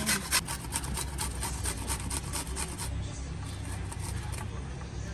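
A red onion and then a garlic clove being rubbed back and forth on a small stainless-steel hand grater, giving quick rhythmic rasping strokes about four a second. The strokes grow fainter and sparser after about three seconds.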